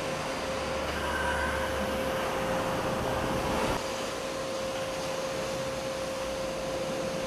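Steady mechanical hum and hiss with one constant mid-pitched tone, a low rumble under it for the first two seconds, easing slightly after about four seconds.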